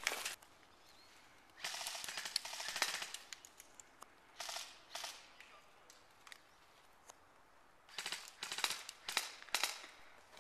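Airsoft guns firing in rapid bursts of sharp clicking shots: one burst about two seconds in, a short one around the middle, and another near the end.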